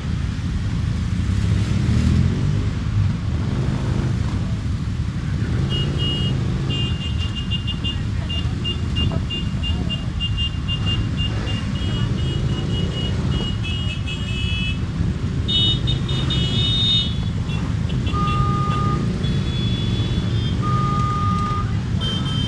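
Many motorcycle engines, cruisers and sport bikes in a slow-moving column, running together in a steady low drone as they pass at low speed. A high beeping is heard through the middle, and two short steady tones sound near the end.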